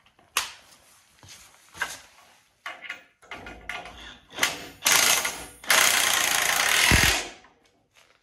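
DeWalt cordless impact wrench hammering on a bolt of a snowplow's cutting edge: a short burst about five seconds in, then a longer run of about a second and a half. A few scuffs and clicks come before it.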